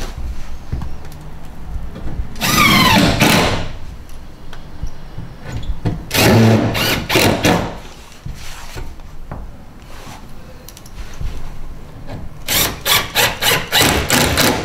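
Cordless drill driving screws through a fibre cement cladding board into the battens: the motor whirs up and down for about a second, runs again in a few stuttering pulls a few seconds later, then gives a quick string of about eight short trigger bursts near the end.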